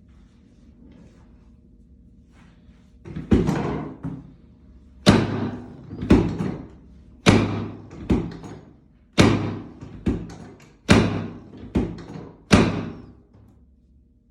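Heavy thuds on a chiropractic treatment table during spinal adjustments: about ten sharp thuds starting about three seconds in, mostly in pairs about a second apart, each ringing briefly.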